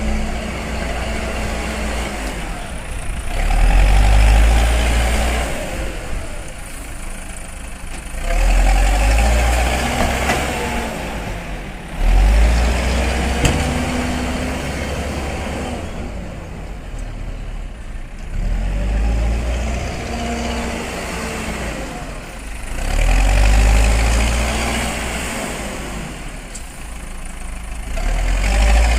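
A loader's diesel engine working under load, revving up and dropping back again and again, with a loud surge about every four to five seconds.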